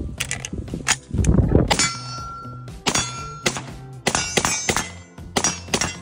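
A string of semi-automatic rifle shots from a Leviathan Defense AR10, about a dozen at an uneven pace, with steel targets ringing on some of the hits.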